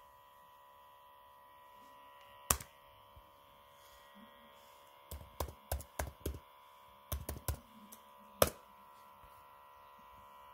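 Laptop keyboard keys tapped in short, uneven runs as a web search is typed, with a single sharp click about two and a half seconds in and another near the end. A faint steady electrical hum lies underneath.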